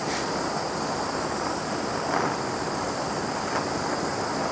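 Handheld propane torch burning with a steady hiss as its flame is played over the beech tote of a hand plane to scorch the wood.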